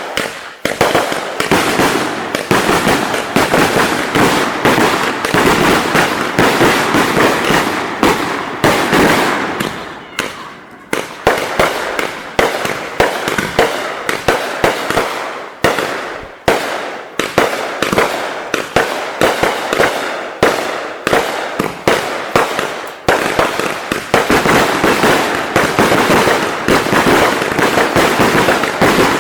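Fireworks going off in rapid succession: dense crackling and popping with many sharp bangs. It eases briefly about ten seconds in, then keeps going.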